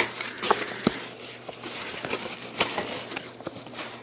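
Plastic packaging handled and pulled apart by hand: scattered clicks and crackles.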